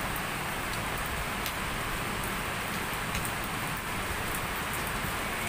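Heavy rain falling steadily: a dense, even hiss, with faint scattered ticks of drops.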